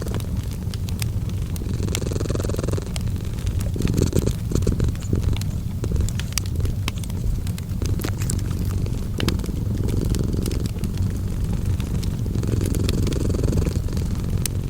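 A cat purring, a steady low rumble that swells and eases with its breathing, mixed with the crackle of a wood fire: frequent sharp pops and snaps.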